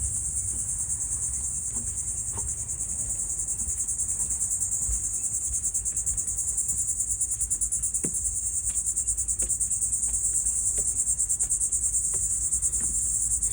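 Insect chorus: a loud, steady, high-pitched buzzing drone with a fast even pulse. A low rumble and a few soft ticks sit underneath.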